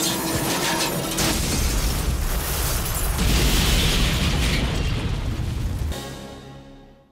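Film sound effect of a heavy metal wreck crashing down a rock face and exploding: dense crashing noise with a deep rumbling blast, fading away over the last second.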